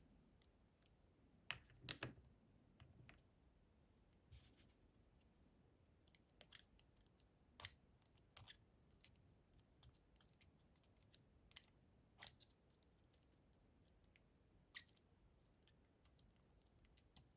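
Faint, scattered clicks and taps of small metal lock-cylinder parts being handled and moved, with a few sharper clicks about two seconds in, around the middle and later on.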